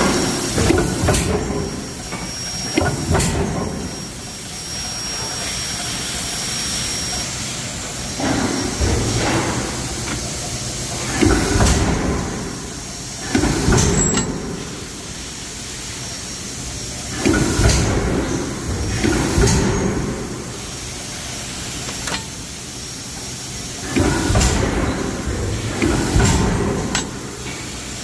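Metal forging: heavy pounding in bursts about a second long, often two close together, every few seconds, over a steady hiss.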